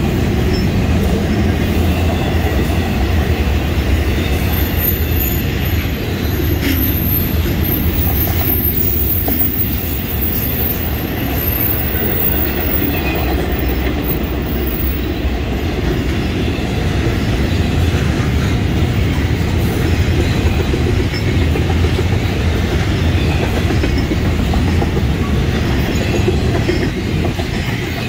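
Intermodal freight train cars, double-stack container well cars and trailer flatcars, rolling past close by with a steady rumble and clatter of steel wheels on the rails. A high wheel squeal runs from about five to twelve seconds in. The noise drops off near the end as the last cars pass.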